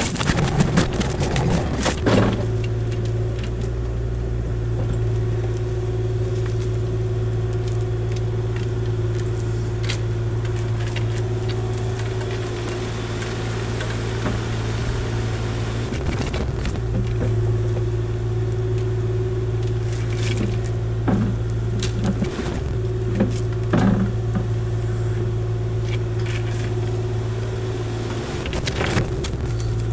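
Kubota KX040-4 mini excavator's diesel engine running under load, driving a hydraulic forestry mulcher head as it chews brush: a steady drone with a hum from the mulcher drum, broken by scattered cracks and snaps of wood. The drone sags briefly twice, about halfway through and near the end.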